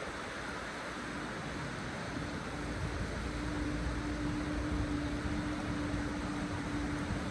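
Wind buffeting the microphone over the rush of the river, the rumble growing stronger a couple of seconds in. A steady low hum also comes in about two seconds in.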